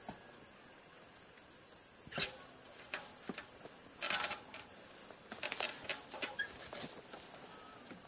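Steady high-pitched chirring of crickets, with a few short splashing and rustling noises as a bucket of water is poured into a burnt-out tree hollow.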